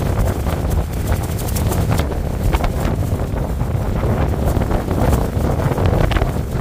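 Strong wind buffeting the microphone: a loud, gusting low rumble, with scattered light clicks over it.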